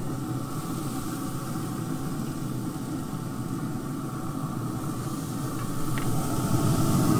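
Steady low rumble and faint hiss of fish fillets sizzling on a hot Traeger pellet grill, with a thin steady hum underneath. A light click about six seconds in.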